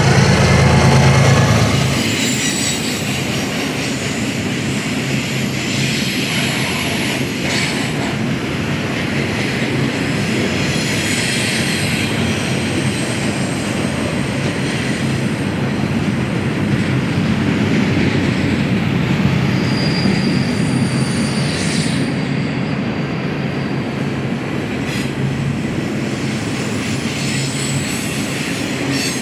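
BNSF freight train rolling past: a steady rumble and clatter of cars on the rails, with thin, high wheel squeals now and then. A deeper, louder hum fills the first two seconds, then drops away.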